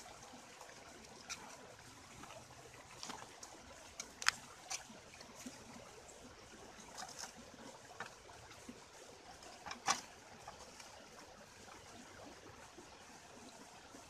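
Steady rush of a nearby stream, with a scatter of short clicks and knocks from hands handling a raw duck in a metal pot; the two loudest knocks come about four and ten seconds in.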